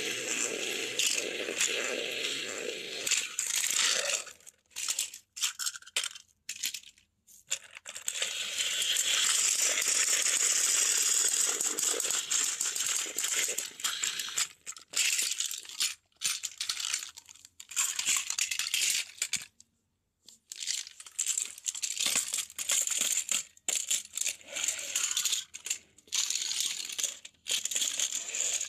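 Battery-powered toy Thomas and Gordon engines running on plastic track, giving a gritty whirr with a rattle. It stops and starts several times.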